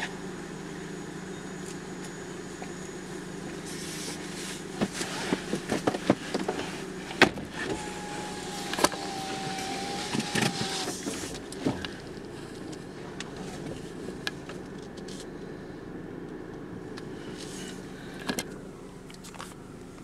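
Christ rollover car wash running, heard from inside the car as its brush gantry approaches. A steady machine hum, with a stretch of hissing and scattered sharp clicks and taps from about four to twelve seconds, and a brief wavering whine within it.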